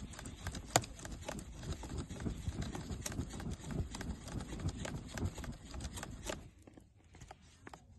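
Campfire crackling and popping under a gusty low rumble of air being blown at it; the rumble dies down about six and a half seconds in.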